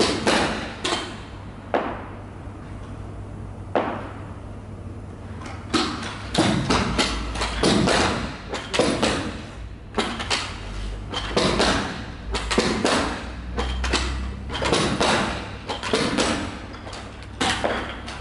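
Carpet knee kicker bumped again and again against the carpet, a run of dull thumps in irregular clusters with short pauses, as the carpet is stretched onto the gripper strips.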